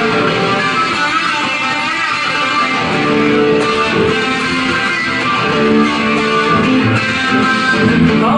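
Rock music led by electric guitar, playing an instrumental passage of chords and sustained notes.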